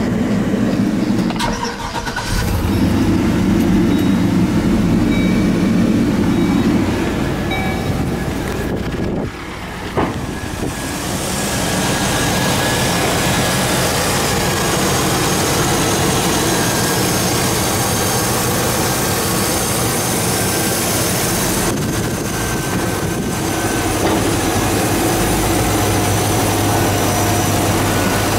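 2004 Chevrolet Silverado's 6.0-litre LQ4 V8 running steadily at idle. It is heard first from inside the cab, then from the open engine bay. A single sharp knock comes about ten seconds in.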